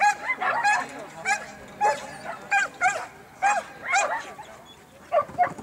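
A dog barking repeatedly in short, high-pitched yips, a dozen or so at an uneven pace, easing off briefly near the end.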